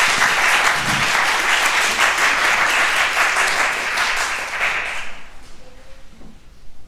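Audience applauding, a dense patter of many hands that fades out about five seconds in.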